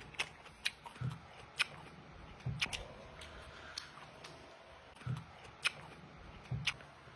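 Close-up eating of whole raw tomatoes: wet mouth clicks and smacks of chewing, several a second, with a low muffled thump every second or so.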